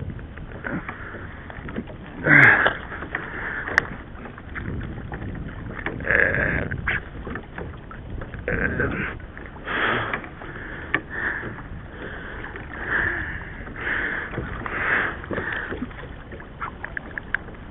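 Water slapping and sloshing against a plastic fishing kayak's hull in choppy sea, in irregular bursts over a steady wash, the loudest about two and a half seconds in.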